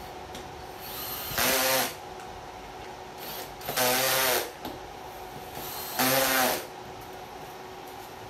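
Cordless drill-driver running in three short bursts of about half a second each, each starting softer and then running at full speed, as it drives the bolts that fasten an armrest to the seat of a leather office chair.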